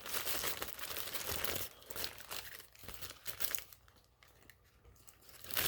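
Paper fast-food burger wrapper crinkling and rustling as it is unwrapped by hand, dense at first, then in sparse rustles that die away, with a fresh burst of crinkling at the end.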